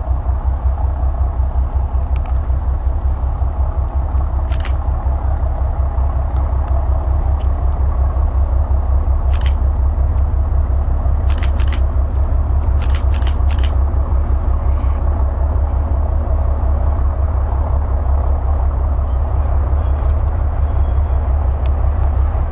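PKP class S200 diesel locomotive, with a ČKD six-cylinder diesel engine, working hard as it starts a heavy container train away. The engine gives a deep, steady, throbbing beat that grows slightly louder as the locomotive comes closer. A few short sharp clicks sound over it around the middle.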